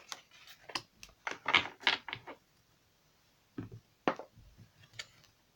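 Oracle cards being handled and a card laid face down on the tabletop: a quick run of clicks and taps over the first couple of seconds, then a few single taps.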